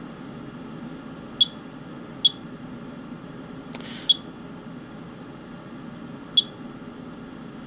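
Geiger counter chirping at detected counts: four short high beeps at irregular intervals, over a steady low hum. Each chirp marks one radiation count from the rain sample being monitored.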